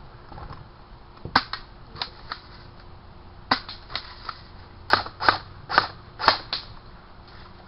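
Airsoft guns firing single shots: a dozen or so sharp pops at irregular intervals, starting about a second in and coming thicker in the second half.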